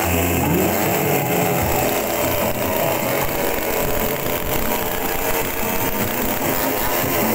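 Chainsaw engine running steadily, with music underneath in the first second or two.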